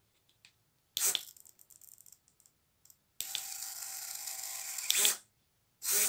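Hobby RC servos swinging their output horns in a speed test, each sweep a short gear-motor whir, about a second in and again near the end. Between about three and five seconds there is a steady buzzing hiss with a few faint held tones.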